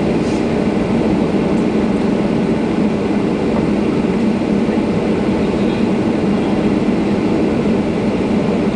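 Boeing 737-800's CFM56 jet engines heard from inside the passenger cabin, running steadily at low power while the airliner taxis, with the even hum and rush of air and cabin noise.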